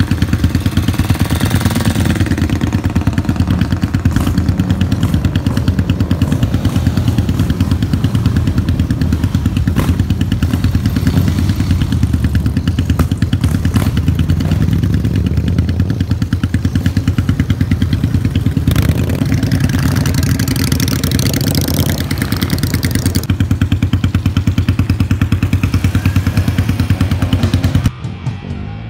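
Engines of a group of cruiser motorcycles running loud, with a low pulsing rumble as the bikes pull away and ride one after another. The sound falls away sharply near the end.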